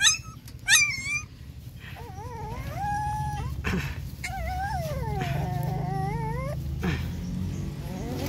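A puppy whimpering: two short high yelps at the start, then long, wavering, high-pitched whines that slide up and down in pitch.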